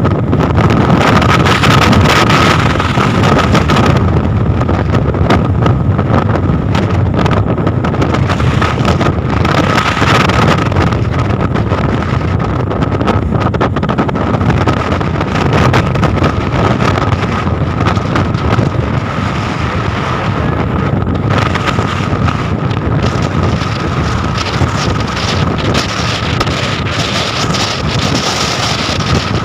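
Storm wind buffeting the microphone aboard a tuna longline fishing boat at sea: a loud, steady rush with a thin high whistle running through it.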